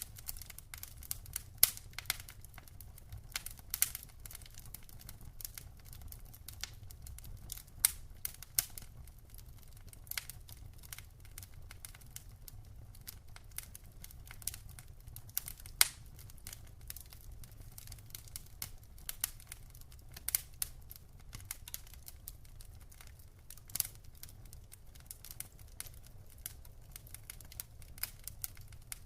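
Wood fire in a fireplace crackling, with irregular sharp pops and snaps, a few much louder than the rest, over a steady low rumble.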